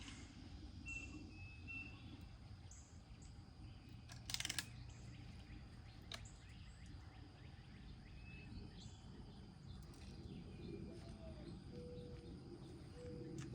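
Quiet outdoor background with a few short bird chirps, and one sharp crack about four seconds in, which is the loudest sound: a BB gun being fired.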